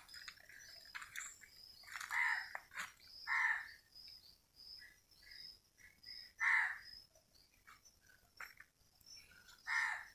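Birds calling now and then, a few short chirps over a faint, steady high insect drone.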